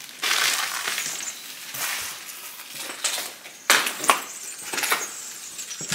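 Footsteps crunching over debris on an old parquet floor, a gritty crunch roughly once a second.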